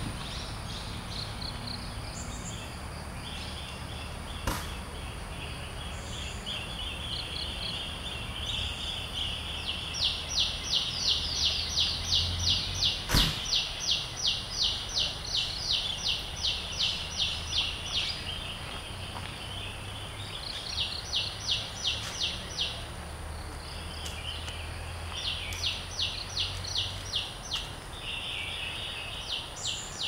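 Insects calling in forest: a steady high buzz that breaks into runs of rapid, even pulses, about four a second. The longest run lasts about eight seconds from roughly ten seconds in, with shorter runs around twenty-one and twenty-five seconds in. A single sharp click comes about thirteen seconds in.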